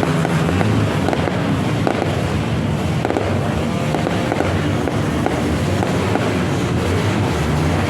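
Fireworks going off continuously, a dense crackle of many small pops and bangs overlapping one another.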